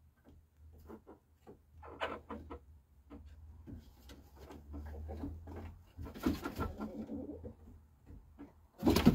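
Chickens settling on their roost in the dark, making soft low clucks and murmurs and shifting with small rustles, with a louder burst near the end.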